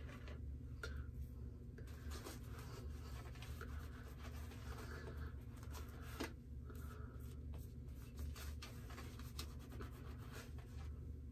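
Double-edge safety razor scraping through lather and stubble on a shaved scalp: faint, irregular rasping strokes during an against-the-grain pass.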